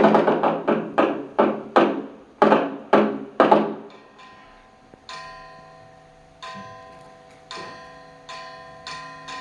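Large Buddhist temple dharma drum (beopgo) beaten in a run of strikes that slow down and stop about three and a half seconds in. After a short pause, a second, quieter instrument is struck about once a second, each stroke leaving a lingering metallic ring, the strokes coming quicker near the end.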